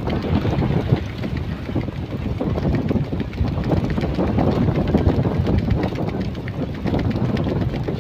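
Strong wind buffeting the microphone, a loud, gusting low rumble.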